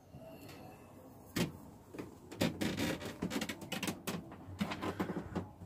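Handling noises: a single sharp knock about a second and a half in, then a quick run of clicks, knocks and rustling as things are moved about.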